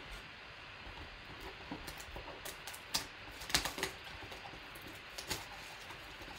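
Cardboard trading-card box handled and opened by hand: scattered taps, clicks and scrapes of the cardboard, with a cluster of sharper clicks about three to four seconds in and another a little after five seconds.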